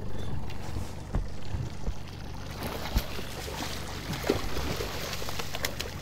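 Boat motor running with a steady low hum while a hooked coho salmon thrashes and splashes at the surface beside the boat, the splashing growing in the second half. A few sharp knocks come through, including one right at the start.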